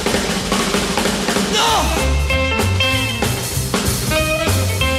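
Instrumental break in a mid-1950s rock and roll record: a drum kit keeps the beat under a lead instrument playing notes that bend in pitch about one and a half to two seconds in.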